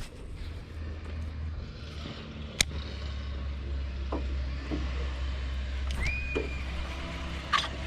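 A boat motor running with a low, steady hum. There is a sharp click about two and a half seconds in, and a short high tone about six seconds in.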